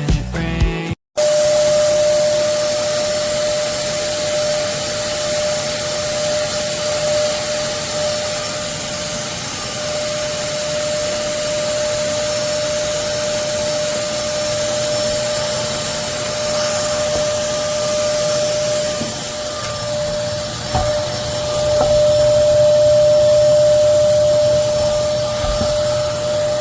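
A Hoover Commercial PortaPower CH30000 canister vacuum cleaner running steadily: a rush of air with a high, steady motor whine, growing louder for a few seconds near the end. A snatch of music cuts off about a second in.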